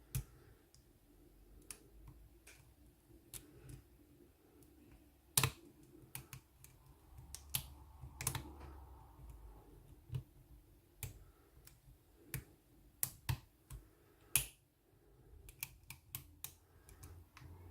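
Irregular small metallic clicks and taps of a short hook pick working the pins inside a Ruko pin-tumbler cylinder, with tension held by a pry bar, while the picker searches for the binding pin. A few sharper, louder clicks stand out about five, eight and fourteen seconds in.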